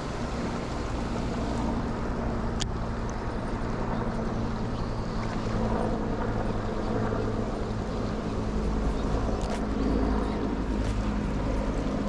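Mountain river rushing steadily over rocks, a loud even rush with a deep rumble underneath, with a few faint sharp clicks.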